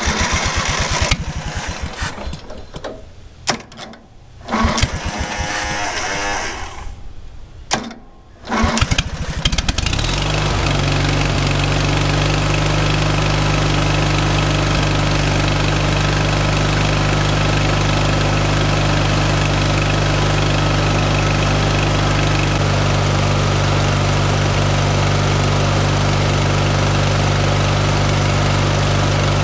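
Riding mower's small gasoline engine being cranked over by its starter in several broken bursts while a spray can is aimed into the intake. It catches about ten seconds in, then runs steadily at an even speed, on a carburetor that has not been cleaned.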